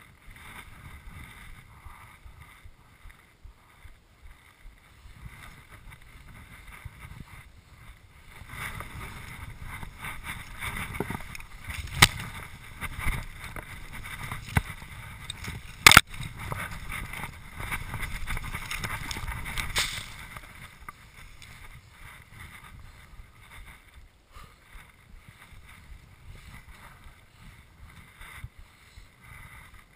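Movement Response X freeride skis plowing through deep powder, a rushing hiss of snow spray that swells through the middle of the run. Two sharp knocks stand out in that louder stretch.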